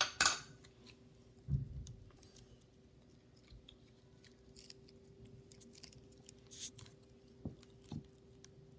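Handling noise from a metal tin of Aaron's Thinking Putty and the putty itself: a sharp scraping crackle just after the start, a low thump, then scattered small clicks and crackles, with two soft knocks near the end.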